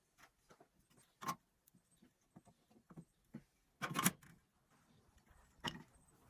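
A few separate sharp knocks and clicks, the loudest a short clattering cluster about four seconds in.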